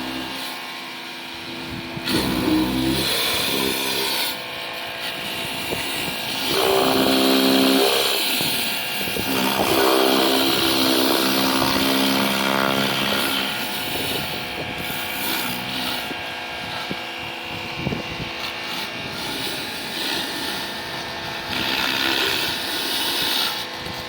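Bosch Aquatak 135 electric pressure washer running, its pump motor whining and shifting in pitch over the hiss of the high-pressure spray on concrete and stone.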